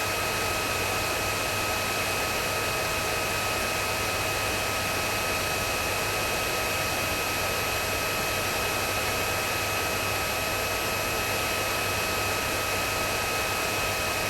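Vacuum cleaner running steadily: an even rush of air with a constant motor whine and its overtones, unchanging throughout.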